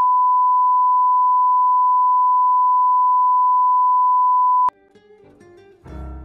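Steady 1 kHz reference tone that goes with television colour bars, a single unwavering beep that cuts off suddenly about three-quarters of the way through. Quiet instrumental music then begins and swells near the end.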